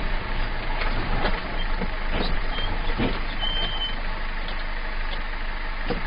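Heavy vehicle running with steady road and engine noise, a few light knocks, and a short high beep about halfway through.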